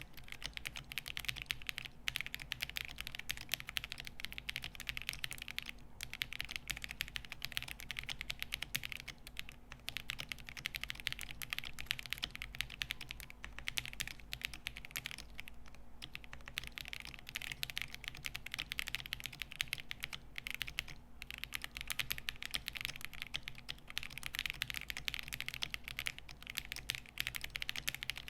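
Fast continuous typing on a gasket-mounted stacked-acrylic 60% mechanical keyboard with lubed KTT Peach linear switches on a polycarbonate plate, a slightly clacky sound, with a few brief pauses between bursts.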